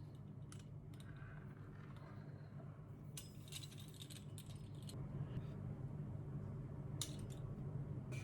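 Scattered light taps and short scrapes of a kitchen utensil cutting and measuring rolled pastry on a board, over a steady low hum.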